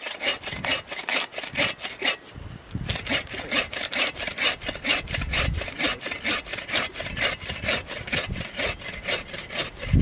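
Hand saw cutting through a wooden branch: quick, even rasping strokes, about four a second, with a short pause about two seconds in. A low thud sounds near the end.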